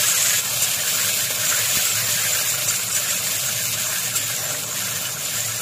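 Sliced onions frying in hot oil in a metal wok, just added and sizzling with a steady hiss that eases a little toward the end.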